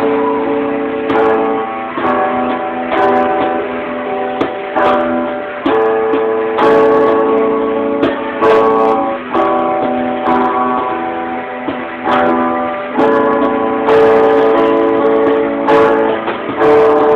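Guitars playing chords together in a steady rhythm. A new chord is struck about once a second and rings on until the next.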